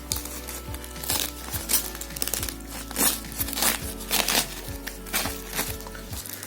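Background music with a steady beat, over packaging crinkling and rustling in irregular bursts as it is unwrapped by hand.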